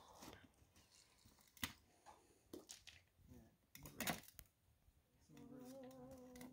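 Near silence with a few faint clicks and knocks, the loudest about four seconds in. About five seconds in, a low steady hum begins, held on one pitch with a slight wobble.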